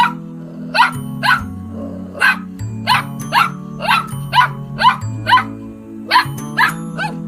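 A dog barking over and over in short, sharp barks, about two a second, with a brief pause a little past the middle, over steady background music.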